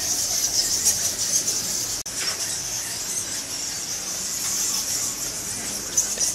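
Steady, high-pitched shrill insect chorus with a flickering texture, which drops out for an instant about two seconds in.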